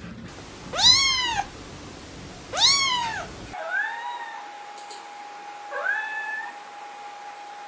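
A kitten meowing twice, loud calls that rise and then fall in pitch. After a cut, a cat gives two softer, shorter meows over a faint steady whine.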